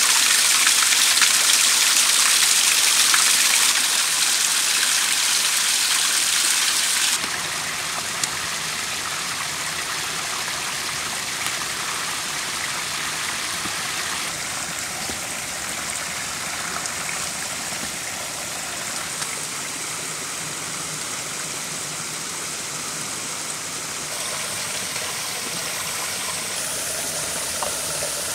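Water falling and splashing over rocks in small woodland waterfalls, a steady rushing with no break. It is loudest for the first seven seconds, then continues as a softer rush.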